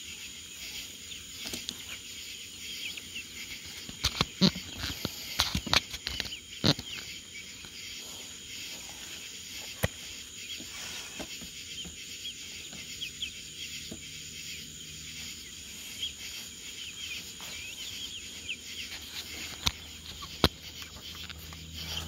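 Young chickens peeping in chorus, many short high chirps overlapping. A few sharp taps and clicks stand out about four to seven seconds in and again near the end.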